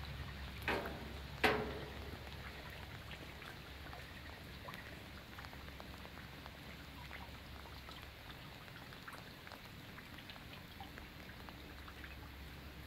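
Scattered raindrops ticking on a surface during a thunderstorm, over a steady low background noise. Two sharper knocks come in the first two seconds.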